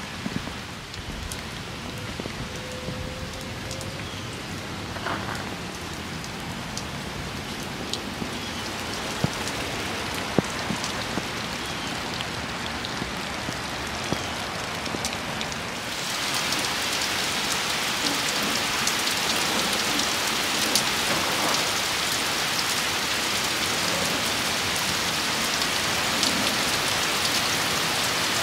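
Heavy rain falling steadily, with many small drop hits on the metal roofs and glass of parked cars. About halfway through it gets louder.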